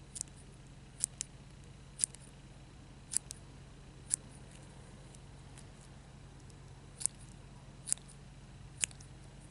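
Tiny scissors snipping through a soft silicone squishy: a sharp click about once a second, eight or nine snips in all, with a pause of a few seconds midway.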